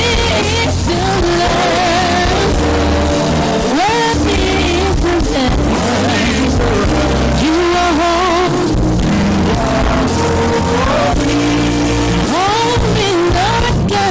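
Praise music with a singing voice over a steady bass line.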